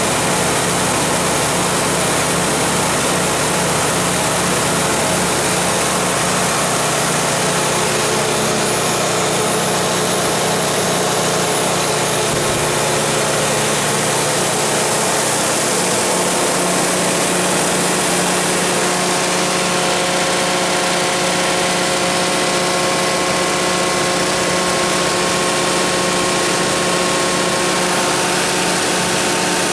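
Cummins 100 kW natural gas generator set, driven by a Ford WSG-1068 V10 engine, running steadily at an even speed.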